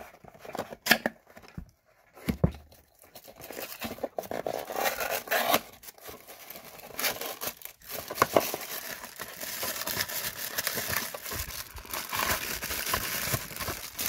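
Small cardboard box being cut and torn open with a blade: a few sharp clicks at first, then scraping and tearing of cardboard that goes on almost without a break in the second half.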